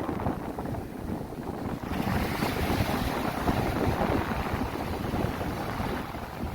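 Wind gusting on the microphone, rumbling low, over sea waves washing; a brighter hiss swells about two seconds in.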